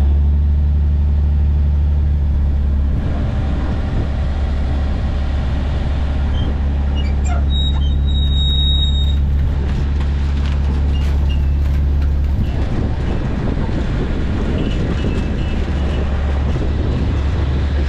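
A shrimp trawler's diesel engine running steadily with a deep, even drone while under way with its trawl nets out, with wind and water noise over the open deck.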